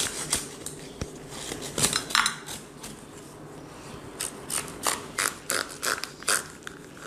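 A knife sawing back and forth through the crisp baked crust of a panettone-shaped empada in its paper mould, a series of short dry scraping strokes. The strokes are sparse at first and come about three a second from around the middle on.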